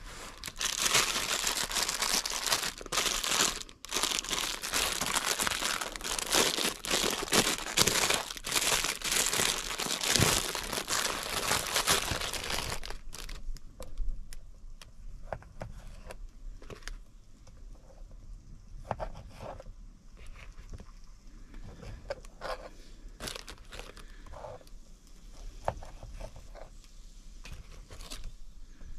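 Crinkly food wrapping being handled and unwrapped, a dense crackling rustle that stops about thirteen seconds in. After that there are scattered light taps and clicks of a small knife slicing cherry tomatoes on a plastic chopping board.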